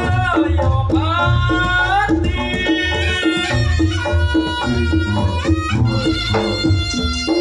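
Reog Ponorogo music played loudly: kendang drums beating a steady rhythm with heavy bass, under a gliding, pitched melody line and repeated metallic tones.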